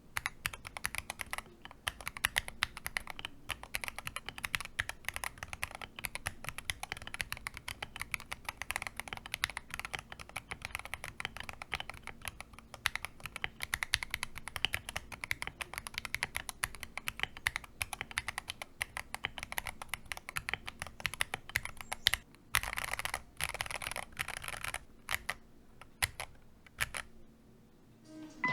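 Steady, fast typing on an Akko MOD005 gasket-mounted mechanical keyboard, key after key clacking, with a denser burst a little past two-thirds in; the typing thins out and stops near the end.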